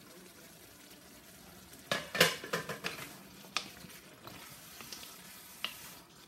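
Vegetables sizzling in a wok while a wooden spatula stirs them. The spatula scrapes and knocks against the wok in a quick cluster about two seconds in, then a few single knocks follow.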